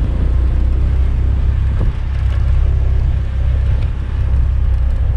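Motorcycle engine running steadily while being ridden, heard as a continuous low rumble.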